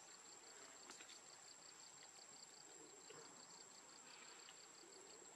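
Near silence with faint insect chirping: a high, even pulse of about four chirps a second over a constant thin high whine. There is a single soft click about a second in.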